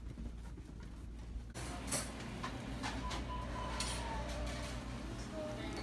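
Low steady hum, then about a second and a half in, restaurant background noise with clatter, scattered clicks and faint distant voices.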